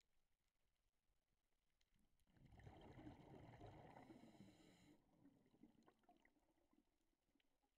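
A scuba diver's exhaled air bubbling out of the regulator underwater: a quiet rushing gurgle that starts about two seconds in and cuts off after roughly two and a half seconds. Faint scattered clicks sound around it.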